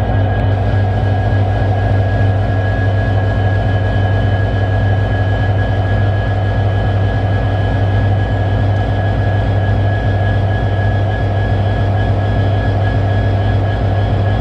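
Canadian National diesel-electric locomotive idling: a steady low drone with a fast low throb under it and a few faint steady higher tones.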